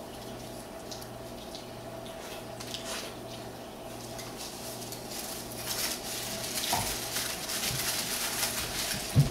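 Aluminium foil crinkling and rustling as a foil-wrapped sandwich is handled, growing busier in the second half, over a steady electrical hum. A single loud thump near the end.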